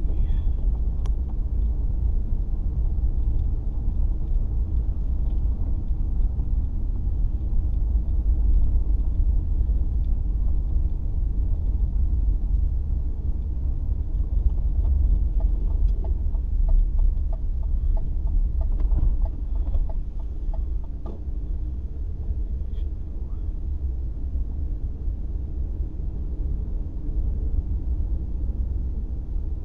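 Steady low rumble of a car driving, road and engine noise picked up inside the cabin by a dashcam. A run of faint short clicks comes a little past halfway.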